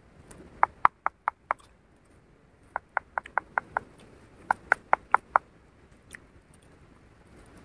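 A small animal calling in three runs of quick, sharp chirps, about five a second, with five to seven chirps in each run.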